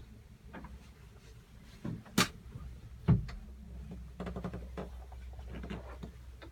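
A few knocks and clicks over a low steady hum: a sharp click about two seconds in, then a heavier low thump a second later, with softer taps around them, like a lid, hatch or fitting being handled.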